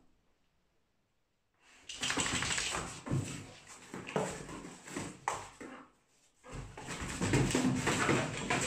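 English bull terrier chewing, tearing and shoving a cardboard box: rough crackling and scraping of cardboard, starting about two seconds in after a short near-silence, with a brief pause around six seconds.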